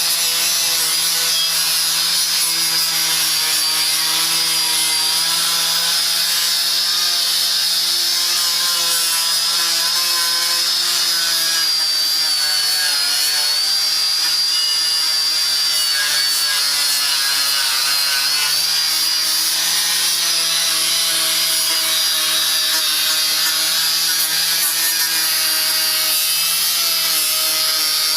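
Handheld power tool running steadily while an abrasive rubs against an engine part to polish it. It gives a continuous motor whine over a rough scraping hiss. The motor slows and drops in pitch under load about two-thirds of the way through, then picks up again.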